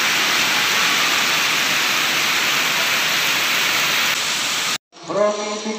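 Heavy downpour, a steady hiss of rain with water pouring off the roof eaves and splashing onto the wet ground. It cuts off abruptly near the end, and a voice follows.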